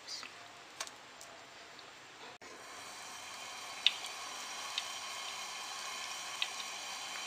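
Sesame-and-breadcrumb-coated fish frying in shallow oil in a nonstick pan. A steady sizzle builds about two and a half seconds in, with a few sharp pops of spattering oil.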